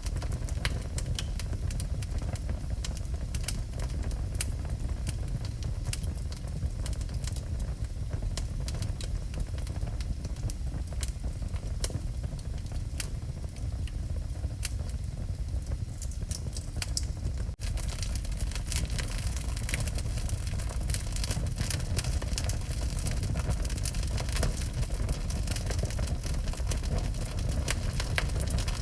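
Wood fire burning in a fireplace: frequent crackles and pops over a steady low rumble of flames.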